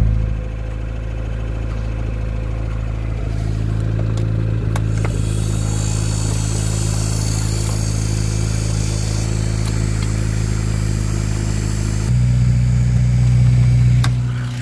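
Lada 2107's turbocharged 1.5-litre four-cylinder, running on LPG, idling steadily after a cold start, heard from inside the cabin. A high hiss comes in about five seconds in and stops about twelve seconds in, when the engine sound gets louder.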